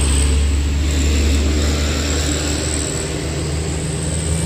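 A heavy truck's diesel engine running with a steady, loud low drone that eases slightly after about three seconds, with a thin steady high whine above it.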